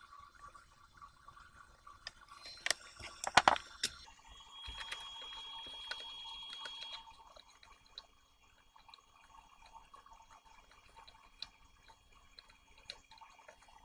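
Small sounds of soldering a replacement component onto a circuit board. A cluster of sharp clicks about three seconds in is followed by a steady high tone with a hiss for about two and a half seconds, then a few scattered light ticks.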